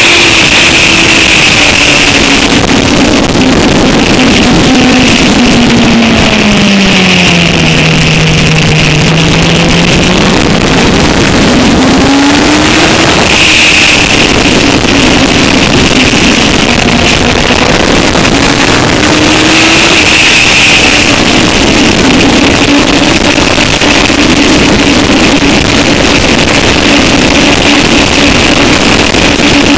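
Motorcycle engine at track speed under heavy wind rush on a tail-mounted camera: the revs fall steadily over the first ten seconds, climb again a couple of seconds later and hold, with another rise about twenty seconds in.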